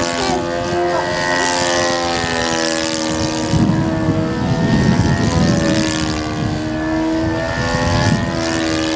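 Radio-controlled model aeroplane's engine and propeller buzzing steadily in flight, its pitch wavering slightly as the plane manoeuvres. A louder low rumble rises in the middle.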